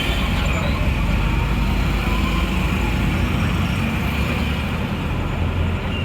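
Busy city street traffic: vehicle engines and tyres, a steady low rumble.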